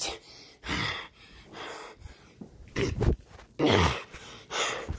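A person breathing hard right against a phone's microphone, about five breathy puffs roughly a second apart, some with the low thud of air hitting the mic.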